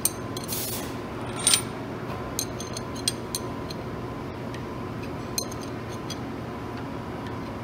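The ram of a Bridgeport-style milling machine being slid back from the tilting head: scattered light metallic clicks and two brief scrapes, the second about one and a half seconds in. A steady hum runs underneath.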